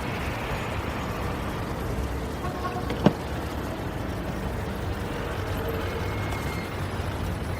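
Steady low rumbling background noise, like traffic ambience, with a single sharp click about three seconds in.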